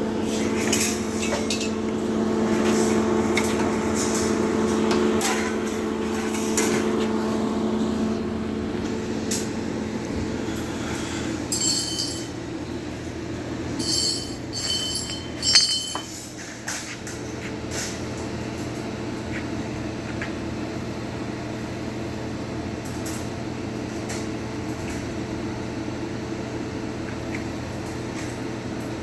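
Metal cage tubing clinking and ringing as pieces are handled, with a few sharp ringing strikes about halfway through, over a steady workshop hum.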